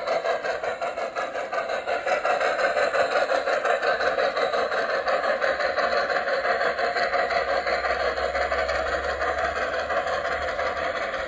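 G-scale model streamlined double Hudson Garratt steam locomotive running along a garden railway with a freight train: a steady, rapid rattling hum of its motors and wheels on the track.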